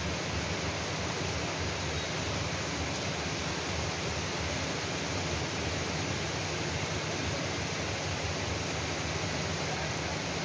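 Steady rain falling, an even hiss that holds at one level without letting up.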